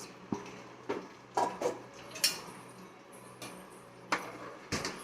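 A metal cooking utensil clinking and knocking against a pressure cooker pot in a string of separate, irregular knocks, as rice is stirred into the boiling masala water.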